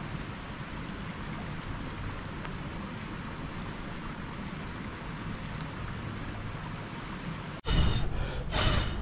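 Steady rush of water noise from rain and the mountain river, with a few faint crackles from a wood fire. About seven and a half seconds in, a close, much louder rush of noise comes in two surges, with faint high ringing, as the fire flares and throws sparks.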